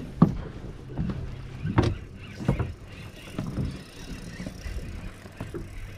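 Scattered knocks and thumps on a small fiberglass boat as people move about the deck with rod and landing net. A steady low hum runs beneath them.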